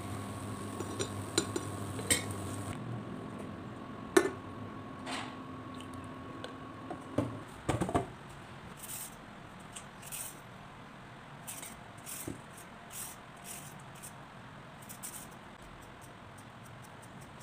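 A steady low hum for the first few seconds, then a few sharp clanks against a stainless steel bowl. From about nine seconds in come short, regular scraping strokes, about one a second, as a peeler shaves carrots into ribbons in the bowl.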